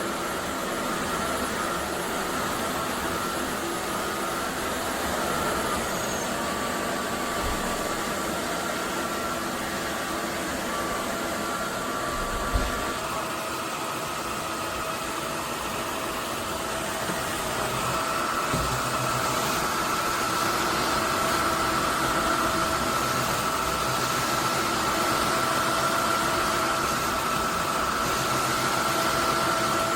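Roborock F25 GT cordless wet-dry vacuum mop running, a steady rush of suction with a motor whine on top. A short thump comes about 12 seconds in, and the machine grows a little louder, with a steadier whine, about 18 seconds in.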